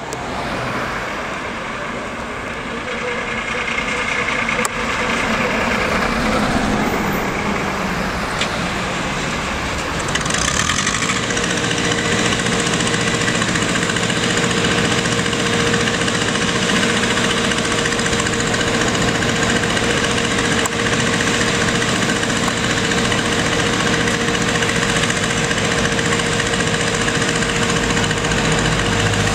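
A heavy engine running steadily amid passing street traffic, growing louder over the first few seconds; about a third of the way in, a steady hum joins and holds.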